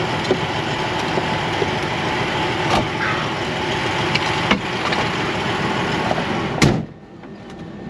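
Diesel semi-truck engine idling steadily, with a few light knocks and rustles in the cab. About six and a half seconds in, the cab door slams shut with a loud bang, and the idle becomes much quieter and muffled.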